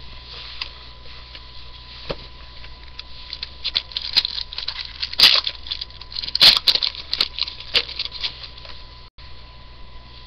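Foil trading-card pack wrapper crinkling and tearing, with cards being handled: irregular crackles and rustles that thicken in the middle, the loudest a couple of sharp crinkles around the middle.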